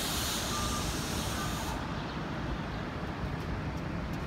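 Downtown street traffic noise with vehicles running nearby. A high hiss, like released air, cuts off about two seconds in, and a short beep repeats about once a second, like a vehicle's reversing alarm.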